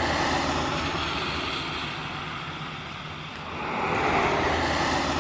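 Steady vehicle noise, a low rumble with road hiss, that eases off about three seconds in and swells again near the end.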